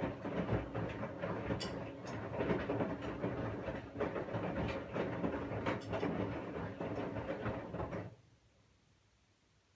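Washing machine drum tumbling a load, with irregular knocks and clatter over a steady low motor hum. It stops abruptly about eight seconds in, leaving near silence.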